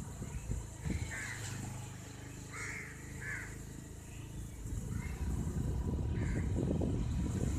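Motorbike engine running at low speed with wind on the microphone, the rumble growing louder about two-thirds of the way through; crows caw about five times over it.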